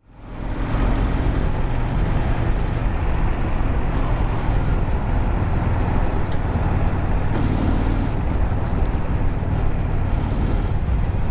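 Honda Steed 400's V-twin engine running steadily as the motorcycle rides through city traffic, heard through a helmet camera's microphone with a heavy wash of wind and road noise. The sound rises out of silence within the first second.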